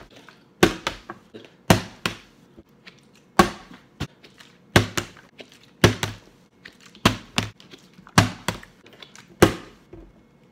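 A plastic water bottle flipped again and again onto a table: about eight thunks a second or so apart, each followed by a smaller knock or two as the bottle bounces or topples. The last one leaves it standing upright.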